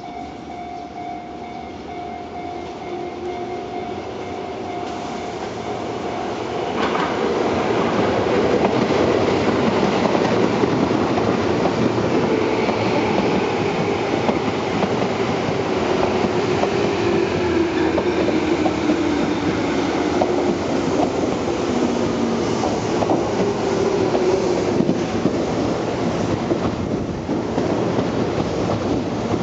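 A Tobu 9000 series electric commuter train passing slowly through a station on a curve. Wheels rumble on the rails with repeated clicking from the rail joints, growing much louder about seven seconds in as the cars go by. A whine falls steadily in pitch as it passes.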